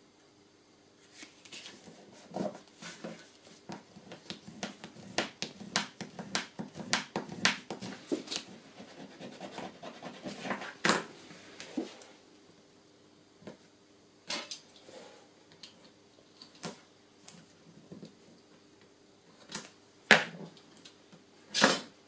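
Stiff paper and card being handled: a busy run of crisp rustles, slides and taps for about ten seconds, then sparser taps, with a few louder ones near the end.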